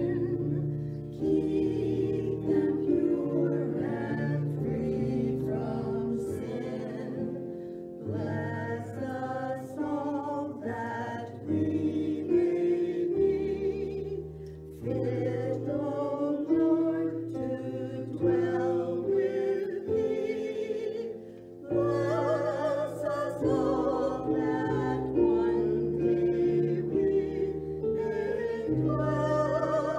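A small vocal group of three women and a man singing a song together from sheet music, in held phrases with vibrato and short breaths between phrases.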